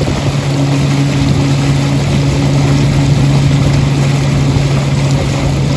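Small fishing boat's motor running steadily under way, a constant hum with water rushing and churning in the wake.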